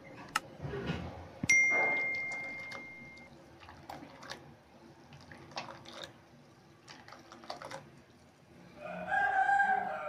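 A mouse click, then a bright bell ding that rings and fades over about a second and a half: the sound effect of a subscribe-button animation. Light clinks of a ladle in a steel saucepan of boiling water follow, and near the end comes a short pitched call lasting about a second and a half.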